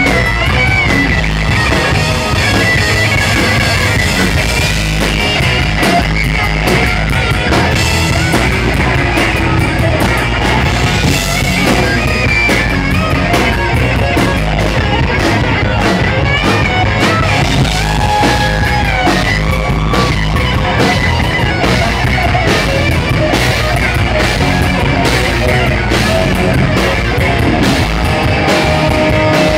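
Live rock band playing loud, with distorted electric guitar lead over bass and a driving drum kit.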